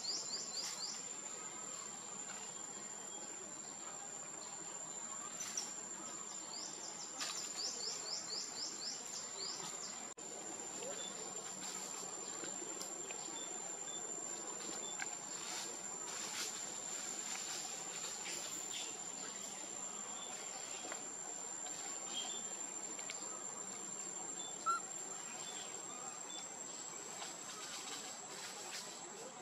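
Insects droning steadily at a high pitch, with runs of quick rising chirps near the start and again about five to eight seconds in, and scattered faint clicks.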